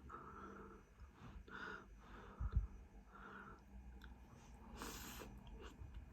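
Faint chewing of a mouthful of rice and sausage, with short breaths in between. A low thump comes about two and a half seconds in, and a brief hiss near five seconds.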